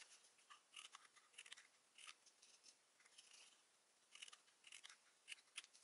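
Small craft scissors snipping into folded cardstock, cutting the little triangular glue tabs: a series of faint, short snips at irregular intervals.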